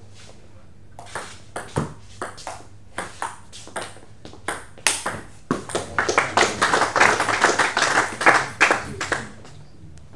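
Table tennis rally: the celluloid ball clicking sharply off the bats and the table, about twice a second at first, then faster and louder for the last few seconds of the point.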